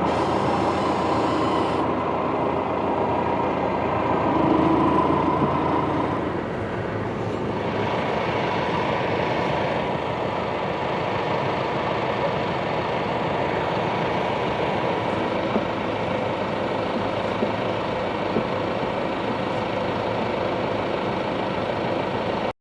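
Tractor engine running steadily with a mechanical drone, a little louder about four to six seconds in. It cuts off suddenly at the end.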